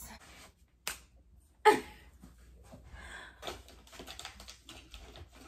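A single click, then a sharp knock, followed by faint irregular clicking and tapping.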